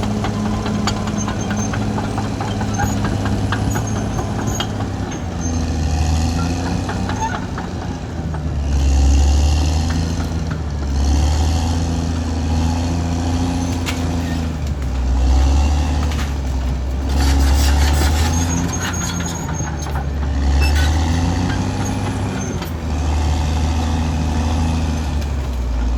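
Caterpillar D6R XL bulldozer's diesel engine working under load. It swells and eases every two to three seconds as the machine pushes and backs off.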